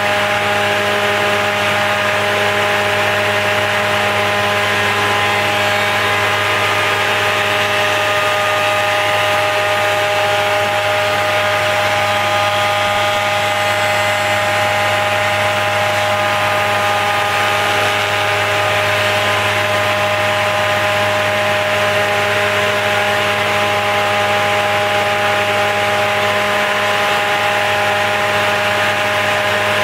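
Felder Format 4 spindle moulder spinning a 220 mm steel Profil 45 raised-panel cutterhead at 6000 rpm: a steady machine hum with a whine above it, holding one pitch and level throughout.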